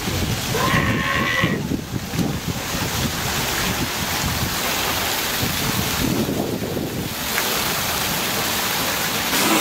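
Steady rush of wind on the microphone and water noise, with one short high-pitched call about a second in.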